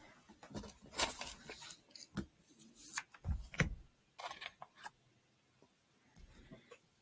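Irregular handling noises: a string of clicks, bumps and rustles, busiest in the first four or five seconds and sparse after that.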